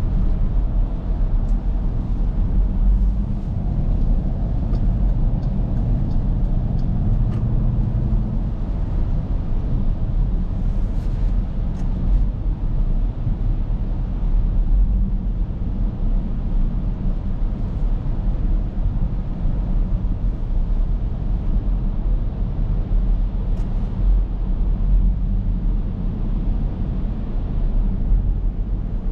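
Steady in-cabin drone of a 2023 Dodge Durango R/T Plus on the move: the low hum of its 5.7 Hemi V8 under a constant rumble of tyres on wet pavement. A few faint ticks come in the first dozen seconds.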